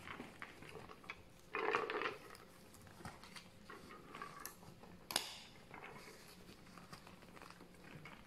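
Soft handling noises as a towel-wrapped rubber ice bag is pressed against an ankle: cloth rustling and crunchy shifting of ice inside the bag. There is a louder rustle about one and a half seconds in and a single sharp click about five seconds in.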